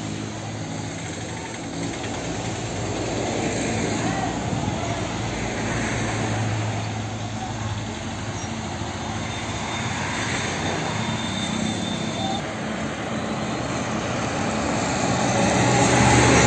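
Steady vehicle noise with a low engine hum under an even rushing hiss, growing louder near the end.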